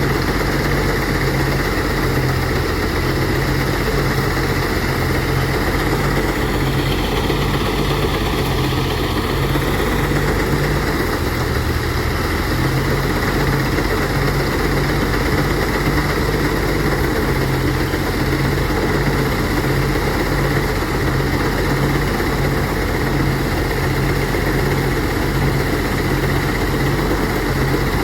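Engine-driven rice threshing machine running steadily at work, with a constant low engine drone.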